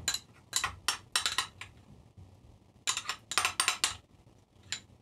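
Metal spoon scraping and clinking against a small glass jar while scooping out mustard. It comes in two runs of quick scrapes and clicks, then a single click near the end.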